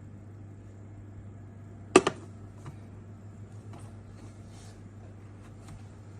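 Portable car cooler box humming steadily at a low pitch, with one sharp clack about two seconds in and a few faint ticks after.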